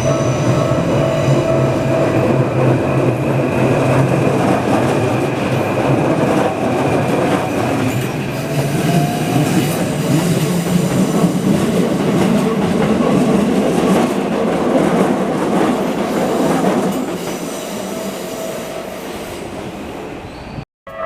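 Keikyu 1000-series and 1500-series coupled electric train running past at close range, its wheels knocking over the rail joints, with level-crossing alarm bells ringing faintly near the start. The train noise eases off over the last few seconds as it pulls away.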